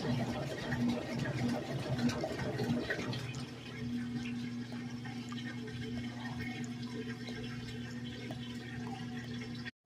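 Electrolux 12 kg washing machine running a wash cycle: water sloshing, with a motor hum that pulses on and off for the first three seconds, then runs steadily. The sound drops out for a moment just before the end.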